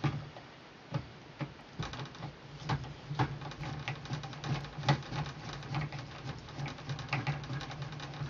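Small screw being driven by hand with a screwdriver into an oscilloscope's chassis: irregular light clicks and scrapes of the tool and screw, over a low steady hum.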